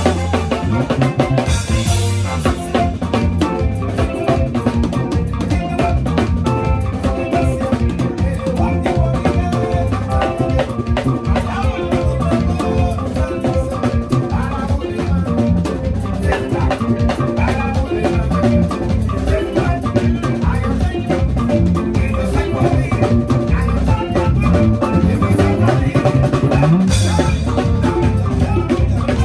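Live band playing a steady drum-kit groove, with electric bass guitar under it. Cymbal crashes ring out about two seconds in and again near the end.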